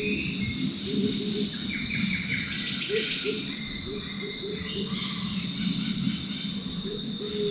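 Tropical forest ambience: several birds calling, with a cluster of quick falling chirps around the middle, over a steady high insect drone. A row of short low calls repeats underneath.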